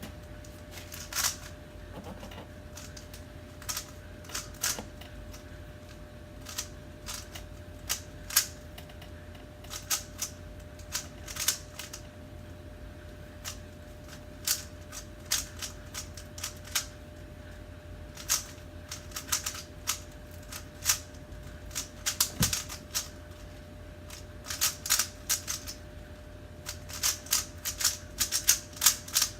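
Rubik's cube being turned fast during a speedsolve: irregular plastic clacking of the layers, in quick flurries with short pauses between them.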